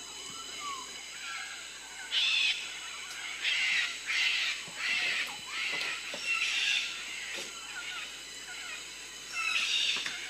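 Tropical forest ambience: birds calling, with a run of harsh calls of about half a second each and small quick chirps, over a steady high drone of insects.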